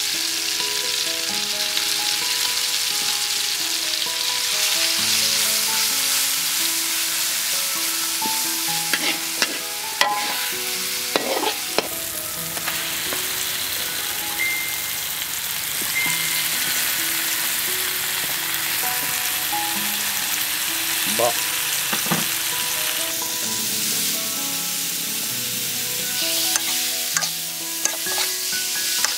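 Food sizzling as it fries in a pan, a steady hiss, with a soft melody of background music underneath and a few knocks now and then.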